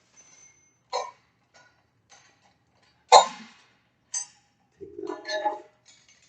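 A few separate metallic clinks and knocks of tools and hardware being handled while lag bolts are set, the loudest about three seconds in, with a short rattling scrape near the end.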